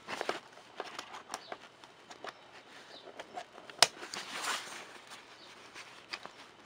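Handling noise of the fabric of a Lowepro Classified 200 AW camera bag close to the microphone: scattered light clicks and rustles, with one sharp click just under four seconds in followed by about a second of louder rustling.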